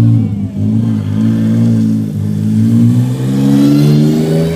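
Rally car engine coming through a bend at competition speed, loud. Its note drops in the first second or so as the car slows for the corner, then climbs steadily over the last two and a half seconds as the car accelerates away.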